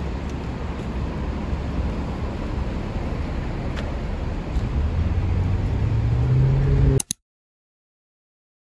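A vehicle's engine running with a low rumble, its pitch rising as it speeds up during the last few seconds; the sound then cuts off abruptly to silence.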